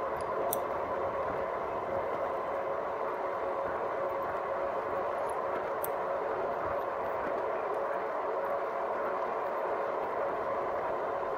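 A 2018 Rad Power Bikes RadMini electric bike cruising at a steady speed on the street: the hub motor's even whine over steady road and wind noise.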